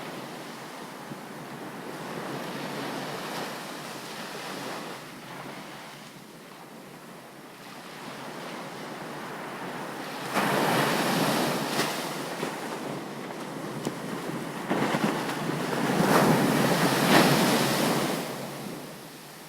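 Ocean waves breaking and washing up on a beach. Two louder surges come in about halfway through, the second fading away just before the end.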